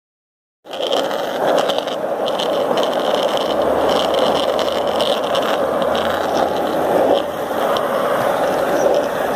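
Skateboard wheels rolling over asphalt: a steady rolling noise that starts abruptly about half a second in and runs on evenly.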